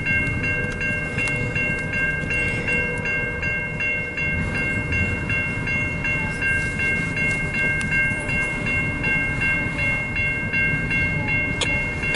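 A freight train's cars rumble slowly past a grade crossing while the crossing's warning bell rings steadily, about two to three strokes a second.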